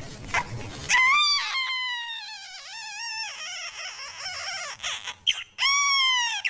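Newborn baby crying: a long, high wavering wail begins about a second in and trails off, followed near the end by a shorter cry that rises and falls.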